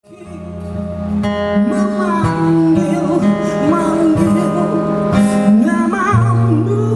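Live band music fading in: acoustic guitar over a sustained bass, with a wavering melody line entering about two seconds in.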